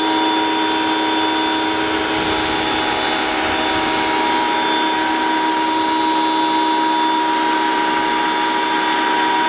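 Electric pressure washer running steadily, its motor whining over the hiss of a foam cannon spraying soap.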